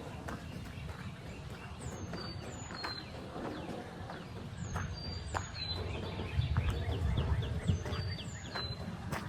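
Songbirds calling in woodland, with short high whistled notes that slide downward, coming in pairs every second or so, and a quick trill about six seconds in. Underneath are scattered crunching steps on the forest path and a low rumble.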